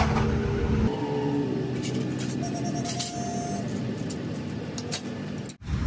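Metal pliers being handled while plastic handle grips are fitted onto them: a few sharp clicks and taps. A low workshop machine hum runs under the first second, then drops away.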